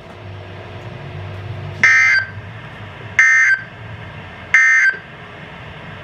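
Three short buzzy data bursts from a weather radio receiver, each about a third of a second long and about 1.4 s apart, over a low steady hum: the EAS end-of-message (EOM) SAME code that marks the close of an alert broadcast.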